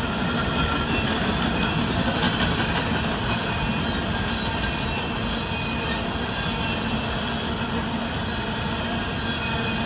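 Loaded-or-empty WEPX coal hopper cars of a freight train rolling past on jointed track: a steady rolling rumble of steel wheels on rail, with faint high steady tones over it.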